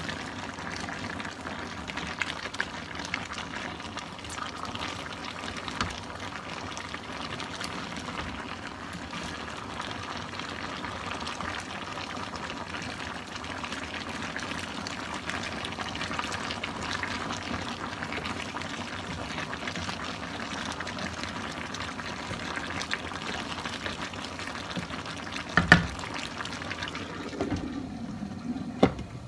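Coconut-milk sauce with crabs bubbling at a simmer in a wok, with the scrape and clack of a wooden spatula stirring. A loud double knock comes near the end, then a glass lid is set on the pan.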